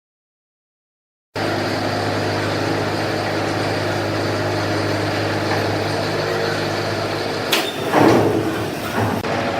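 Wood-processing factory machinery running with a steady mechanical hum, after over a second of dead silence at the start. Near the end a louder, harsher burst of noise lasts about a second and a half.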